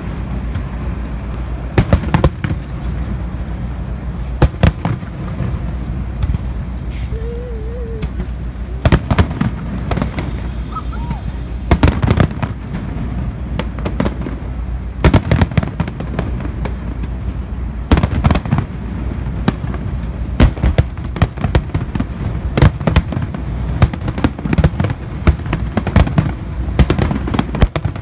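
Aerial fireworks shells bursting with sharp booms, a few seconds apart at first, then in quick volleys from about twenty seconds in.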